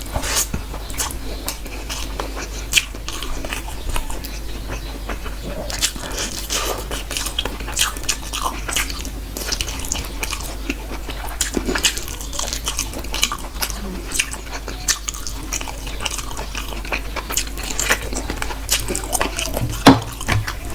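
Close-up mukbang eating sounds: biting into and chewing chicken bhuna and rice, with frequent wet smacks and crunchy clicks and one sharper click near the end.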